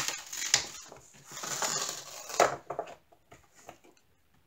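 Diamond painting canvas, covered in resin drills, rustling and crackling as it is pressed flat and smoothed by hand inside a thin magnetic frame, with a few sharp clicks. After about three seconds only a few faint taps remain.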